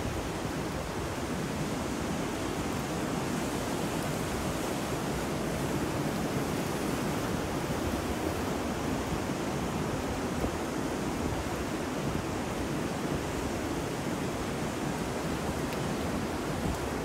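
Ocean waves, wind and rain blended into a steady, unbroken wash of noise with only gentle swells, as a sleep-ambience recording.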